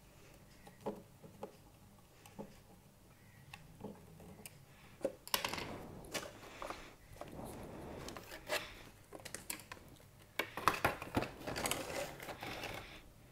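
Faint clicks of a small screwdriver tightening the battery-cover screw on a plastic RC drone controller, then knocks and rustling as the controller is set down and a paper manual and cardboard box are handled, busiest near the end.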